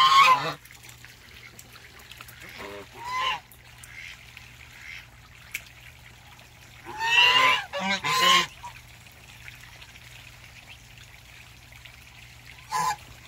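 Goose honking, several times: a call at the start, another about three seconds in, a run of three or four honks around seven to eight seconds in, and a short one near the end.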